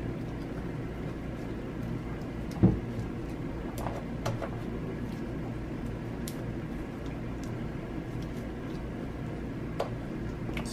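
Pink slime being stretched and squished by hand, giving a few faint clicks and one soft thump about two and a half seconds in, over a steady low hum.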